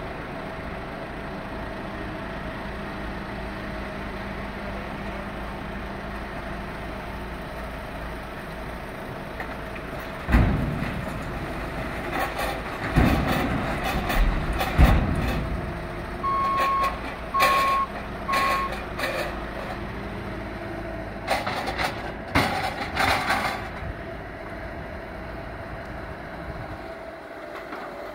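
Bobcat skid-steer loader's diesel engine running steadily while its grapple dumps demolition debris into a steel roll-off dumpster, with loud crashes and clatter about ten seconds in and again past twenty seconds. Its backup alarm beeps three times partway through.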